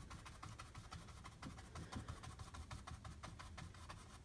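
A large paintbrush scrubbing acrylic paint back and forth across a stretched canvas: a faint, rapid scratching of bristles on the canvas weave.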